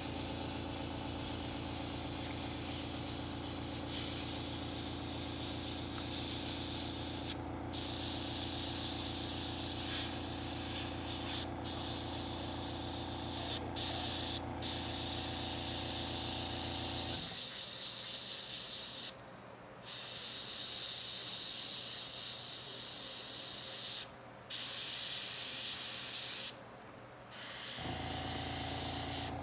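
Airbrush spraying in long hissing bursts, broken by brief gaps where the trigger is let off. Under it the air compressor's motor hums steadily, cuts off suddenly a little over halfway through, and starts again near the end.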